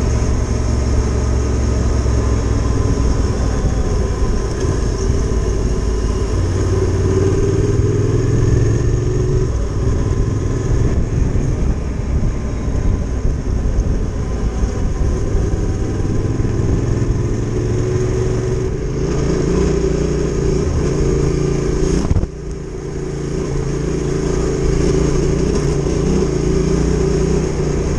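Adventure motorcycle engine running under way on a trail ride, its pitch rising and falling with the throttle. About two-thirds of the way through, the sound drops suddenly for a moment, then builds again.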